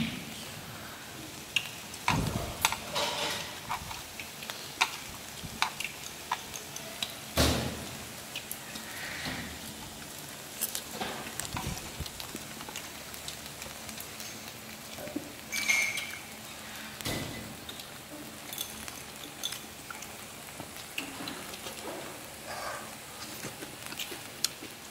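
Beef and vegetables sizzling steadily on a grill pan over a portable gas stove, with scattered sharp clicks and clatter of utensils against the pan and bowls, the loudest about two seconds in, about seven seconds in and about sixteen seconds in.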